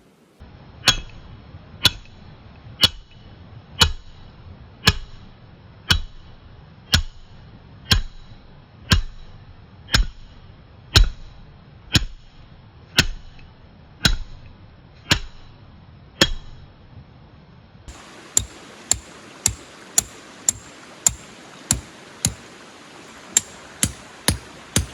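Background music with a sparse electronic beat, about one hit a second; a little past the middle it switches abruptly to a faster beat, about two hits a second, over a steady hiss.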